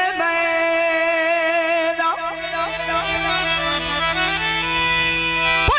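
Instrumental folk music interlude: a reed instrument holding long steady notes, shifting to a new chord with a low drone about two seconds in.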